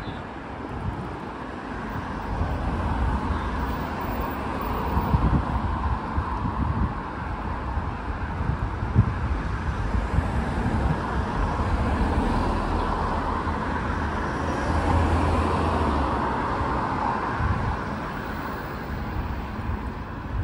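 Road traffic on a wide multi-lane city street: a steady rush of cars and tyres that swells and fades as vehicles pass, with a low engine drone passing about fifteen seconds in.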